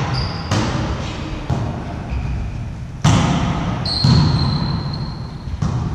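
A volleyball being struck again and again in a rally, about five sharp hits with an echo from the sports hall. A high squeak sounds about four seconds in and lasts over a second.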